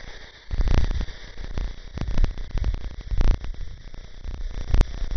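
Wind buffeting the camera's microphone in uneven gusts: a rough rushing rumble, heaviest in the lows, with surges about half a second in, around two and three seconds in, and a sharp knock near the end.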